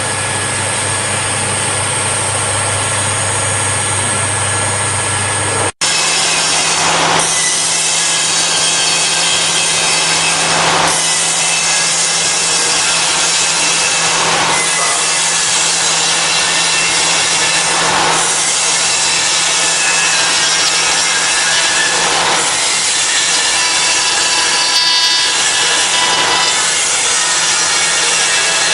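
5-axis CNC router spindle machining wood: steady cutting noise over a constant hum, swelling at regular passes about every three and a half seconds. The sound breaks off abruptly about six seconds in and resumes.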